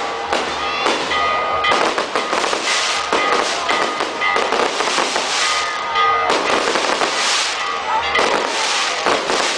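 Fireworks and firecrackers going off, a dense run of rapid crackling bangs.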